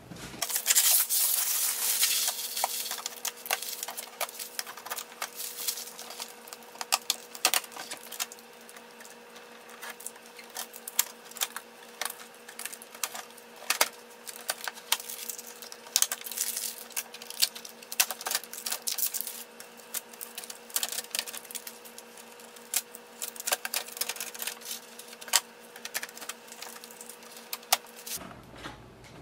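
Rustling and tearing of cardboard and plastic packaging, loudest in the first few seconds. Then comes a long, irregular run of sharp clicks, taps and rustles as packing tape and protective material are peeled off the printer and its lid is handled. A faint steady hum runs underneath.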